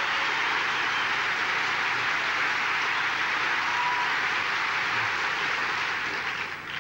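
Large audience applauding steadily, the applause dying away near the end.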